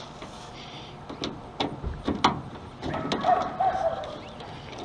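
Hand tool removing the screws that hold a pickup's tail light housing: irregular sharp clicks and knocks, with a few short squeaks in the second half.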